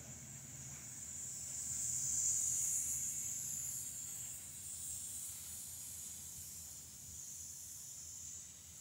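The tail end of a slow-moving freight train of hopper cars rolling by: a high, steady hiss from the steel wheels on the rails, loudest about two seconds in as the last cars pass, then fading, with a faint low rumble dying away.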